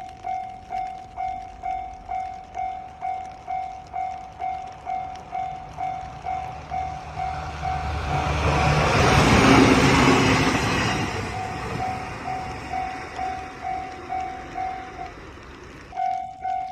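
Japanese level-crossing alarm bell ringing, a steady repeating tone of about two strokes a second, while an electric train passes through the crossing. The train noise swells from about seven seconds in, is loudest around the tenth second and partly covers the bell, then fades. Near the end the bell stops for about a second, then starts again.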